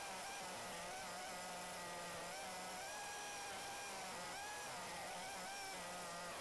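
Snowmobile engine running, heard as a faint buzzing whine whose pitch rises and falls with the throttle.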